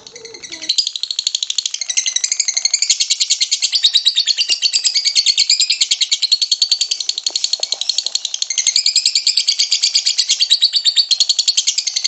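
Lovebird singing its long, rapid chattering song (the 'ngekek'): a fast, unbroken run of high chirps, about a dozen a second, that starts about a second in.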